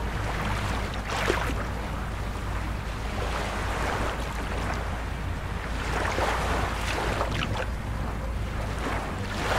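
Small waves washing up a sandy shore and against the hull of a beached polypropylene boat, several surges a few seconds apart, over a low steady rumble of wind on the microphone.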